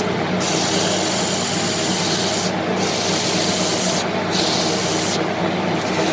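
Wood lathe running steadily while a tool or abrasive is pressed against the spinning mahogany workpiece. It works in about four passes of one to two seconds each, with brief gaps between them.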